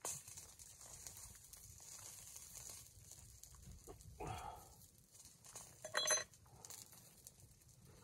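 A short bleat, falling in pitch, about four seconds in. About six seconds in comes a sharp metallic clink with a brief ring, of tongs against a wire grill rack.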